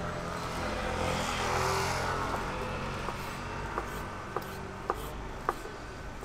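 A road vehicle passing, its hiss swelling and fading in the first two seconds, followed later by four sharp knocks about half a second apart.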